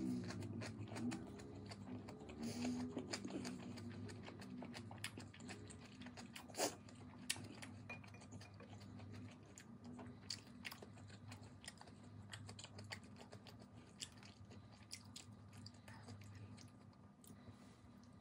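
Quiet eating sounds: chewing, with scattered light clicks of wooden chopsticks against ceramic bowls. Faint background music in the first few seconds.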